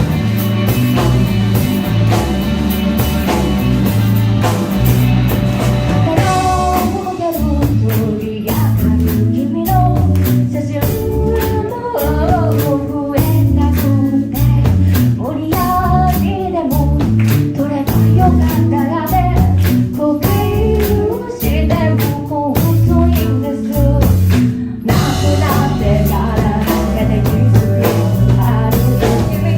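Rock band with electric guitar and drum kit playing a song. The first six seconds are instrumental, then a lead vocal comes in. The whole band stops briefly near the end and comes back in.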